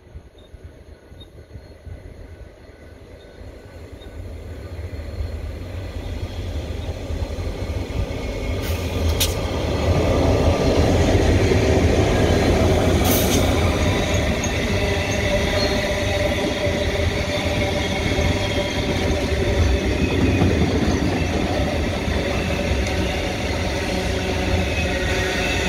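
Diesel-hauled cattle train passing through a station: the locomotive's engine and wheel rumble grow steadily louder over the first ten seconds as it approaches and passes, followed by the steady rumble and rattle of the livestock wagons rolling by.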